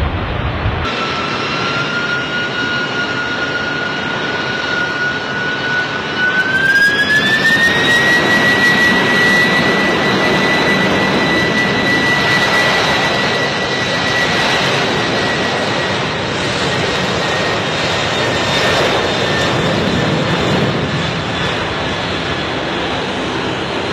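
Boeing 747 jet engines running at high power on the takeoff roll, with a loud rushing noise. A whine rises in pitch between about six and eight seconds in as the engines spool up, then holds steady.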